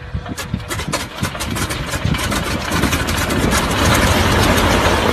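An old airplane's engine being started, firing in uneven separate beats at first, then catching and running more steadily and louder over the last couple of seconds.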